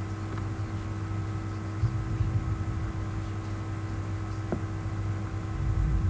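Steady electrical hum with background hiss: room tone on the recording microphone, with a few soft low bumps about two seconds in and again near the end.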